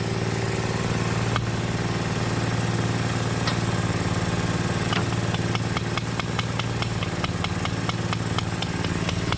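A vehicle engine idling steadily. About halfway through, a rapid run of regular sharp clicks joins it, about five a second.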